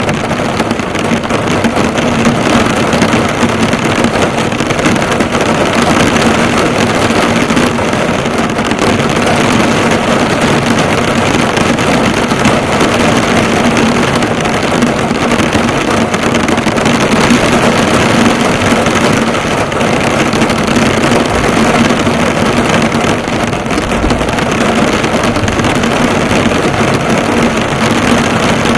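Heavy rain drumming steadily on a car's hood and bodywork, heard from inside the car.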